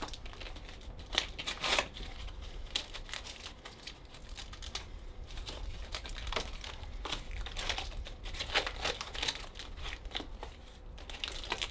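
Plastic packaging crinkling and tearing in irregular crackles and rustles as a Captains of Crush hand gripper is unwrapped.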